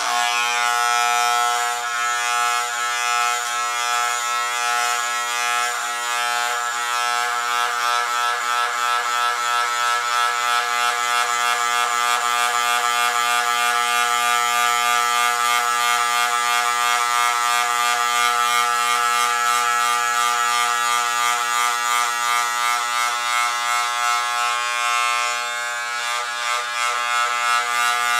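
Electric hair clippers switched on and buzzing steadily as they cut through hair on the head, the level wavering slightly as the blades work through the hair.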